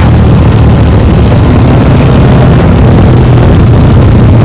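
Motorcycle engine running at a steady speed through a loud aftermarket exhaust, a low even drone with no revving.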